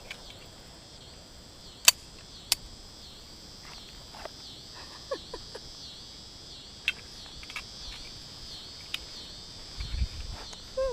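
Insects chirping in a steady chorus that pulses about twice a second, with two sharp cracks about two seconds in and a few fainter clicks.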